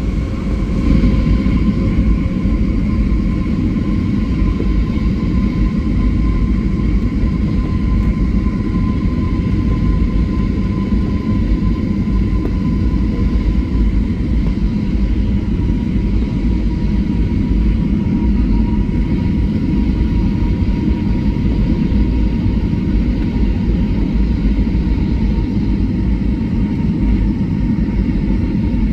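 Jet airliner cabin noise on the approach to landing: a steady, loud low rumble of engines and rushing air, with a thin engine whine that drifts slightly lower in pitch.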